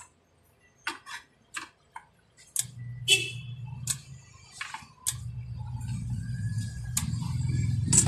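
A string of sharp clicks and light knocks from handling the opened electric instant water heater. A steady low hum comes in about two and a half seconds in and grows louder after five seconds.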